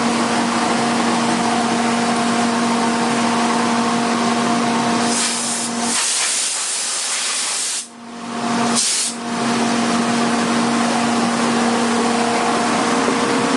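A duct-cleaning vacuum runs with a steady hum and rush of air. About five seconds in, a louder rushing hiss of air takes over for a few seconds and cuts off sharply. A second short hiss follows about a second later.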